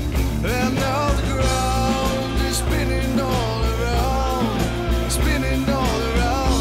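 Rock music soundtrack: a lead melody bending up and down in pitch over steady low bass notes.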